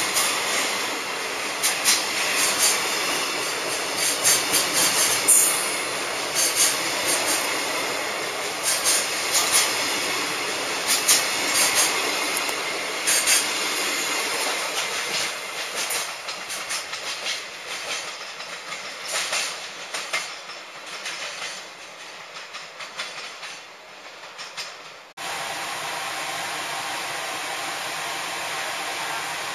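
Container wagons of a long freight train rolling past close by: a rushing rumble with rapid clicks of wheels over rail joints, fading as the last wagons go by. About 25 seconds in it cuts abruptly to a steady, even hiss.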